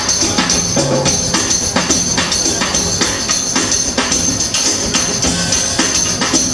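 Big band playing live, an upbeat number with a steady beat of about two strokes a second: bright jingling high percussion on each beat over horns and bass.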